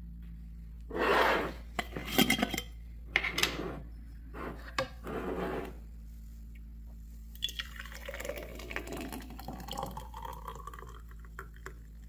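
A glass blender jar clatters and rubs as it is handled during the first half. Then thick blended herbal syrup is poured from it into a glass mason jar, glugging, with a pitch that rises as the jar fills.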